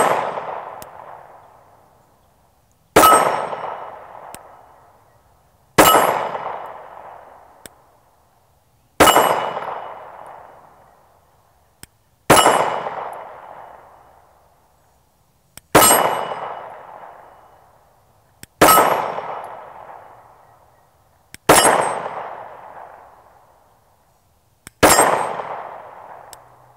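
Glock 48 9mm pistol fired slowly for a group, eight single shots about three seconds apart, each crack trailing off in a long echo.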